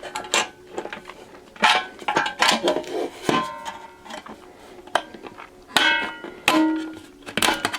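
Thin stainless steel utensil bin clanking as it is knocked and worked with hand tools: a series of irregular metallic clanks, several leaving a short ringing tone.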